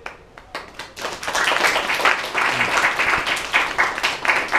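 A small audience applauding: a few scattered claps at first, swelling about a second in to steady clapping from many hands.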